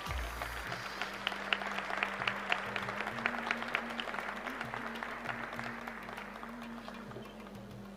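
Arena audience applauding, the claps swelling early and then fading away over the last few seconds.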